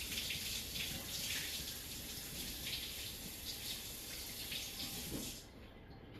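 Kitchen tap running, with water splashing over a large cucumber being rinsed under it. The water shuts off abruptly about five seconds in.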